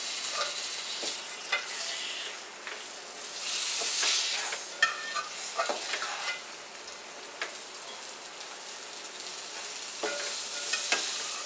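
Masala frying in oil in a nonstick kadhai, sizzling as chicken pieces are stirred through it with a wooden spatula. The sizzle swells and fades with the stirring, with a short scrape or tap of the spatula against the pan every second or so. The masala is fried until the oil separates, and the chicken is being mixed in.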